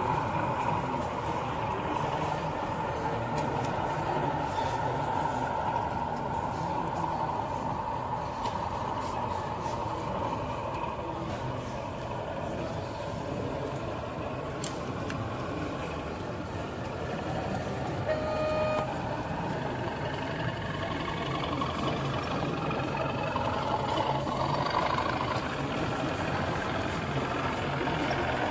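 Sound-fitted model locomotive running with a steady engine hum, which climbs in pitch in the last third as if revving. A single short horn toot comes about two-thirds through. Faint hall chatter underneath.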